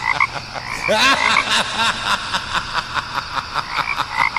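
Frog chorus: rapid, even pulsing croaks, about six or seven a second, with short high chirps over them.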